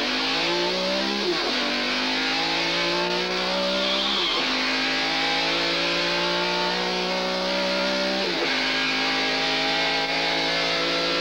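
A vehicle engine accelerating hard through the gears. Its pitch climbs steadily, then drops sharply at each of three gear changes, about one, four and eight seconds in.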